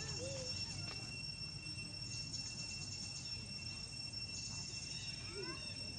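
Steady insect chorus held in two high pitches, with bursts of faster chirping partway through. A few faint short gliding calls come just after the start and again near the end.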